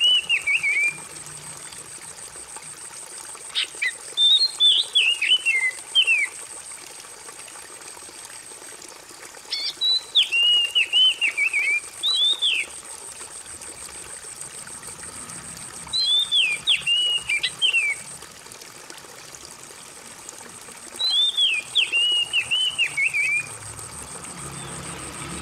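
Water trickling steadily, with a songbird's phrase of quick descending whistled notes repeated every five or six seconds, four times over plus the tail of one at the start.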